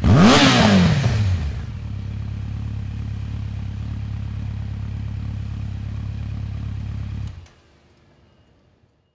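Honda CB1300SF's inline-four engine through a Yoshimura slip-on Cyclone LEPTOS muffler, blipped once sharply at the start. The revs fall back to a steady idle, which stops abruptly a little over seven seconds in.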